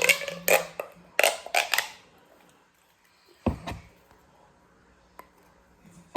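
Plastic pop tube fidget toys being pulled and pushed, making about five short popping sounds in the first two seconds. A dull thump follows about three and a half seconds in.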